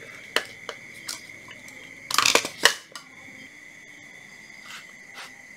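Handling noise from tools and a piece of cardboard being set down on a tiled floor: a few light clicks, then a brief burst of scraping and clatter about two seconds in, over a steady high-pitched whine.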